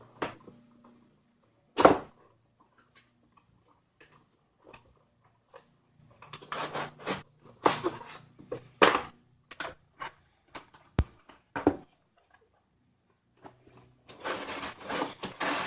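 Intermittent rustling and crinkling of packaging as the box is opened, in short irregular bursts, over a faint low hum.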